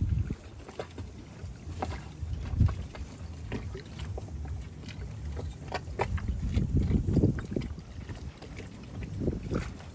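Wind gusting on the microphone in low rumbles, over water lapping and splashing against a small boat's hull in short irregular slaps.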